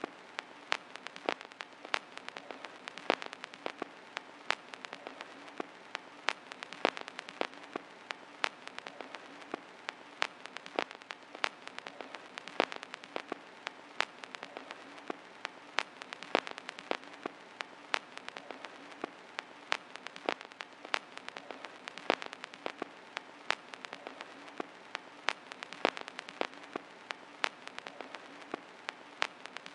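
Vinyl record surface noise: a steady hiss with irregular crackles and sharp pops, several a second, and no music playing.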